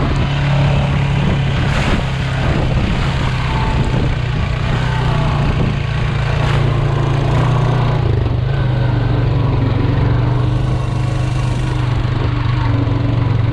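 Honda Foreman ATV engine running steadily as the quad rides along, with a couple of brief knocks from the ride.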